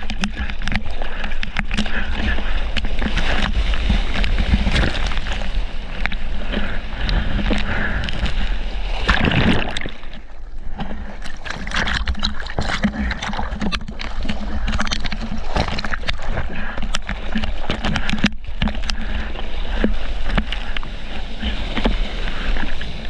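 Hand-paddling strokes splashing and seawater sloshing against a surfboard and a camera held close to the water surface, many sharp splashes over a steady wash. The sound briefly dulls about ten seconds in.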